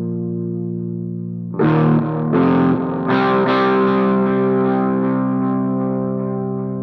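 Background music: distorted electric guitar letting chords ring, with new chords struck about a second and a half in and twice more soon after.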